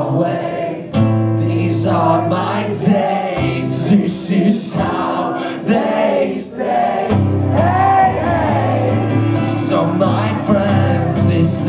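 Live song from a solo singer strumming a guitar, heard from within the audience in a reverberant club.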